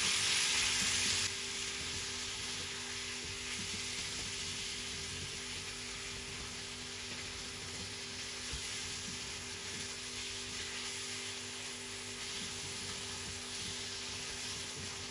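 Minced beef and onion sizzling in a frying pan as the meat browns, stirred with a silicone spatula. The sizzle is a little louder for about the first second, then settles to a steady hiss.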